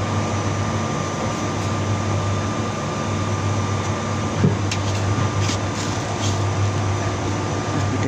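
Steady low machine hum with a thin high tone running over it. Around the middle come a light knock and a few faint clicks as hands work on the washing machine's drain valve assembly.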